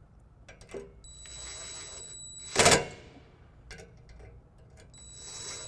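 Power driver spinning nuts onto the mounting-bracket screws in two runs. Each run is a high motor whine of about a second and a half that ends in a brief, loud rattle as the nut seats: the first ends about two and a half seconds in, the second near the end.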